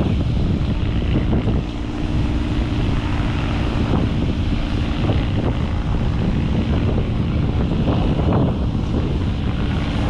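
Wind buffeting the microphone over the wash of ocean surf. A steady low hum joins about a second and a half in and fades after a few seconds.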